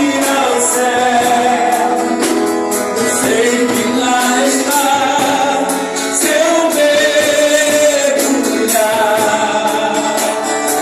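Church praise group singing a worship song live, held sung notes over band accompaniment with a regular beat.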